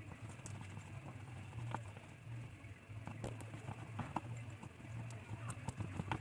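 A fork stirring a thick glue-and-talc slime mixture in a small pot: scattered soft clicks and sticky ticks as it works the mixture, over a low hum.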